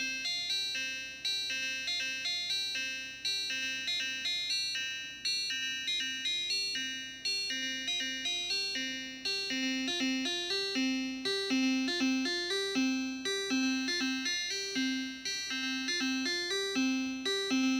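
Sequenced sine-wave oscillator played through an ER-301 sample-scanner wave-mapping distortion loaded with an acoustic-guitar waveform: a repeating melody of short plucky notes, a few a second, rich in overtones. The tone of the distortion changes as its phase parameter is turned up.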